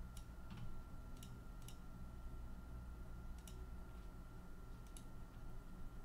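About six light, sharp clicks at uneven intervals, over a faint steady hum.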